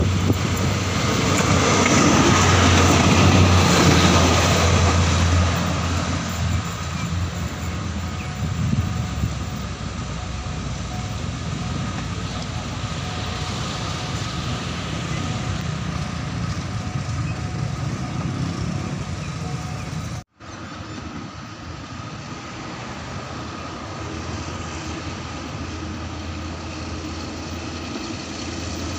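State Railway of Thailand diesel railcar approaching and running past, its engine and wheels loudest a few seconds in, then a steady mechanical rumble. A sudden cut about two-thirds of the way through leaves quieter steady background noise.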